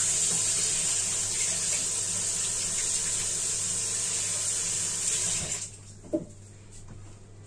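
Water running from a tap into a sink, a steady hiss that stops suddenly near the end, followed by a single short knock.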